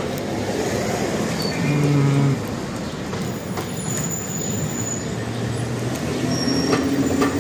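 Steady city street traffic noise: the rumble of passing vehicles, with a short low hum about two seconds in.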